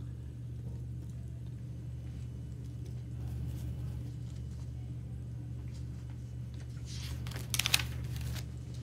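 Steady low hum of room machinery, with a short burst of rustling and clicks about seven seconds in.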